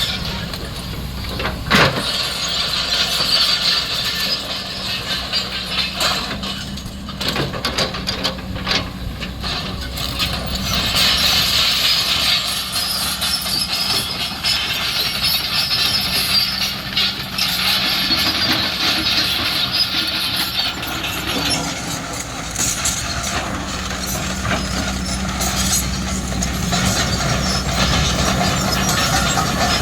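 Kobelco SK-series hydraulic excavator running: its diesel engine holds a steady note under a higher hiss, with occasional sharp metallic knocks.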